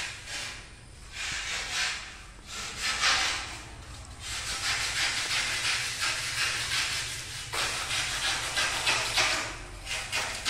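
A blade rasping and scraping along a decorative cornice strip as it is cut, in repeated strokes: scattered bursts at first, a long dense stretch in the middle, then a run of quick short strokes near the end.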